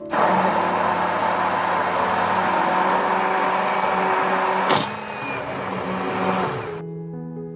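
Electric blender motor running steadily with a brief interruption a little after halfway, then switching off near the end, over soft background music.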